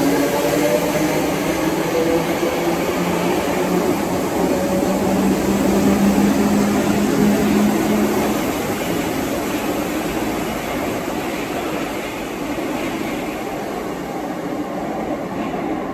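Merseyrail Class 507/508 electric multiple unit moving through an underground station, its motor whine sinking slowly in pitch over the first several seconds, then fading into a steadier rumble of wheels on rail, echoing in the tiled tunnel.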